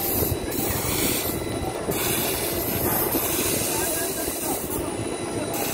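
Steady, rushing mechanical noise with voices faintly in the background.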